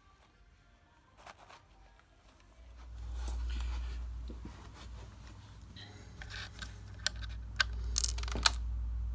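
Plastic Lego pieces clicking and rattling as they are handled, with sharp clicks coming more often and louder in the second half, over a low steady hum.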